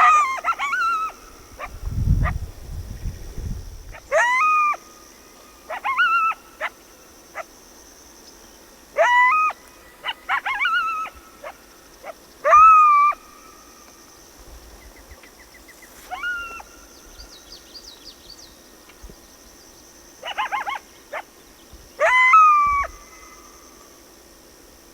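Coyote calling in about a dozen short yips and brief howls, each rising sharply in pitch then holding or falling away, irregularly spaced a second or a few seconds apart.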